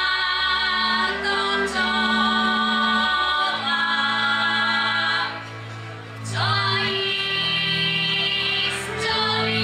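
Women's voices singing a Slovak folk song together in harmony, holding long notes, over a steady low instrumental tone. The singing breaks off briefly about five and a half seconds in and again near the end, between phrases.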